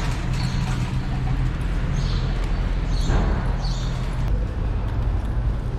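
Metal shopping cart rolling over concrete: a steady low rumble from the wheels, with a few sharp rattling clinks about two to four seconds in.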